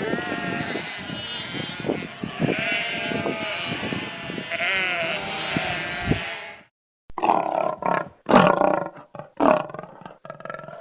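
Animal calls: one long pitched call over low grunting thumps, a brief break about two-thirds of the way in, then a different animal calling in several short bursts.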